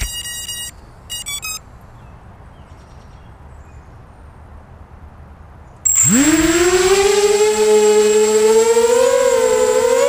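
A few short electronic beeps, then about six seconds in a multirotor drone's electric motors spin up with a sudden rising whine that holds and climbs slowly in pitch as the drone lifts off.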